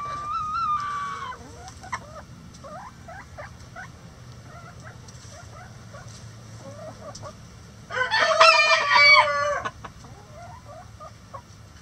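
Chickens clucking softly in short notes, with a loud rooster crow lasting nearly two seconds about eight seconds in. A drawn-out call trails off about a second in.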